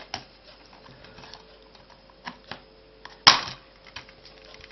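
A Blu-ray case being handled and opened: scattered light plastic clicks and taps, with one loud, sharp click about three seconds in.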